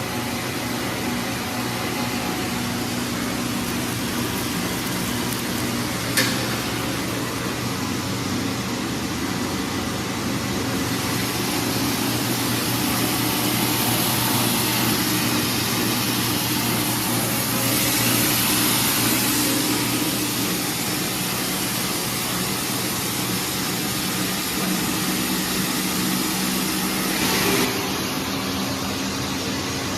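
Food production line machinery running steadily: a constant mechanical hum with several steady tones and a hiss that grows louder in the middle. A sharp click comes about six seconds in, and a short louder noise comes near the end.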